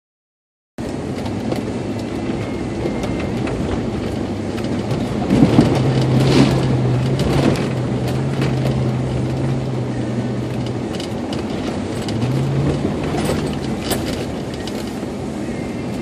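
Off-road SUV's engine and tyres heard from inside the cab on a rough dirt track. About five to seven seconds in it splashes through a muddy puddle, water slapping the body and windshield. The engine note rises briefly about twelve seconds in.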